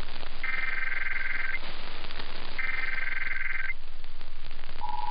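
Emergency Alert System SAME header: two one-second bursts of buzzy digital data tones, a second apart, over steady radio hiss, followed near the end by the start of the steady two-tone attention signal.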